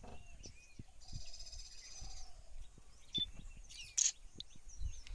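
Wild birds calling: short chirps and a fast high trill about a second in, over a low steady rumble and scattered faint clicks, with one short sharp noise about four seconds in.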